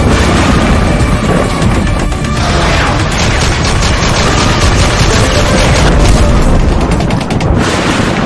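Cinematic intro sound effects over music: heavy booms with a dense rumble, and from about three seconds in a fast rattle of sharp shots that stops shortly before the end.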